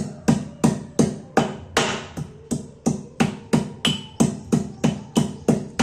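A piece of fresh ginger being pounded with a pestle, steady strikes about three times a second, each with a short ring.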